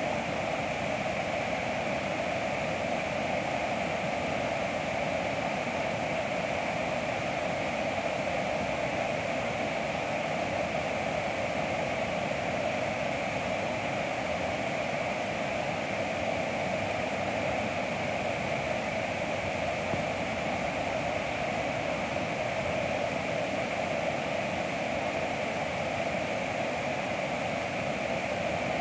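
River whitewater rushing steadily over a standing wave, a constant unbroken rush of water.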